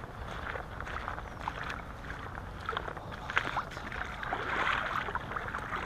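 Rustling and short knocks close to the microphone, with water sloshing that swells briefly about four and a half seconds in as an asp is held over the shallows.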